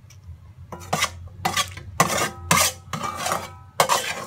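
Cooking utensil clattering and scraping against the strainer of drained elbow macaroni, about six knocks with a ringing tone.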